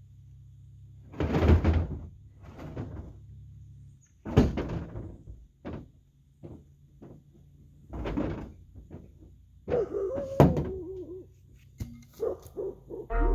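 Irregular thuds and knocks, about a dozen of them, the loudest about a second and a half, four and a half and ten and a half seconds in.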